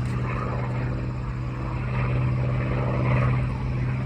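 Propeller aircraft engine running at a steady, even drone.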